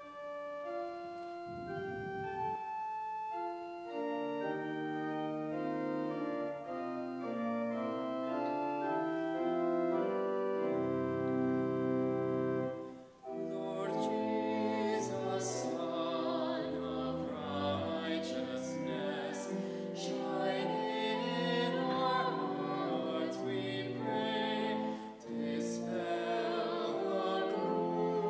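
Church organ playing a slow introduction of held, stepped chords. After a brief pause about 13 seconds in, a voice starts singing over the organ accompaniment.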